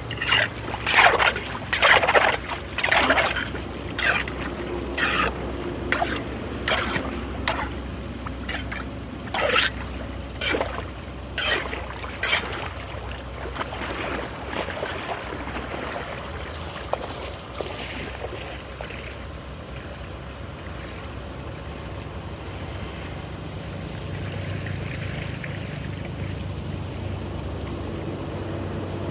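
Water splashing in a quick series of separate splashes for the first dozen seconds or so, dying away into steady trickling, running water.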